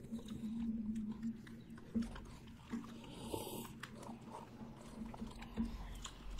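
Quiet eating sounds of people eating ice cream: soft slurps, lip smacks and small clicks of wooden spoons against paper cups. A steady low hum runs underneath.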